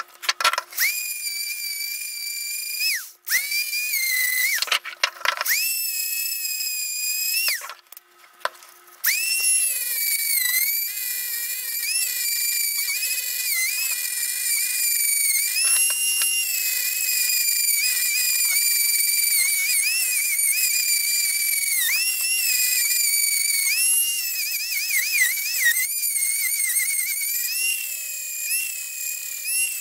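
Dremel rotary tool with a small grinding stone whining at high speed as it grinds the inner lip out of a PVC pipe fitting, its pitch dipping and recovering as it is pressed into the plastic. It cuts out briefly a few times in the first nine seconds, then runs steadily.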